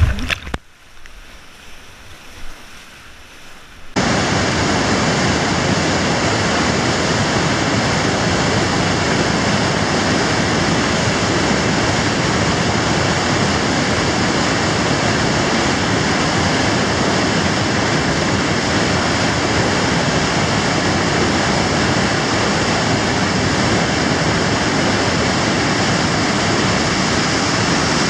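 Whitewater rapids in a flooded river, a loud, steady rushing that starts suddenly about four seconds in; before that, a brief splash of a kayak paddle in the rapids.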